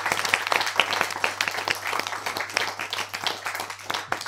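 Applause: many hands clapping in a dense patter of sharp claps.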